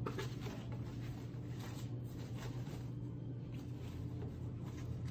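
Faint rustling and scraping of a fabric travel wardrobe organizer and its nylon straps as they are handled and pulled, over a steady low hum.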